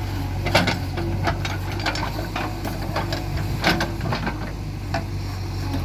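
JCB 3DX backhoe loader's diesel engine running steadily, with irregular sharp knocks and clacks over it, the loudest a little past half a second and just before four seconds in.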